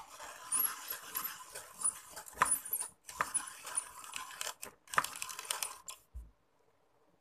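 Hand-cranked plastic pencil sharpener being turned, a rattling, clicking grind of its blades shaving a pencil. It breaks off briefly about three seconds in and stops about six seconds in.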